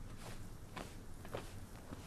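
Footsteps on dry, stony ground, about two steps a second, over a low steady hum.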